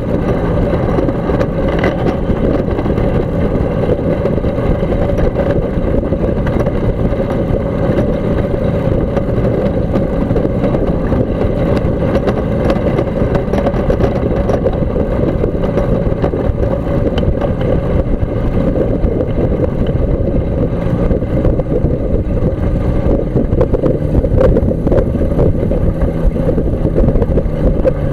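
Kolb Mark III ultralight's pusher engine and propeller running steadily while the aircraft taxis, a loud, continuous low drone picked up close by the tail-mounted camera. It grows a little louder near the end.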